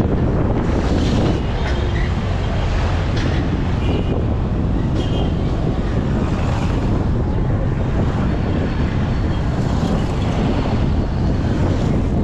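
Wind buffeting the microphone, a loud steady rumble with no letup.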